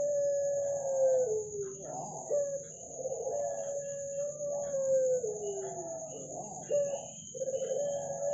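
White puter pelung dove cooing: long drawn-out, wailing coos, each held on one pitch for about two seconds and then sliding down, with short upturned notes between them. Two full coos, and a third begins near the end.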